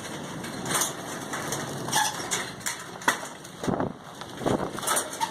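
Strong wind with a handful of irregular knocks, creaks and rattles.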